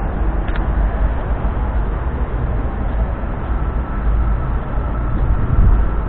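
Steady outdoor city background noise with a heavy low rumble, and a faint steady whine that comes in about halfway through.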